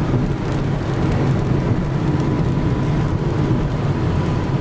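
Steady road noise inside a moving car: a low engine and drivetrain hum with tyres hissing on wet pavement.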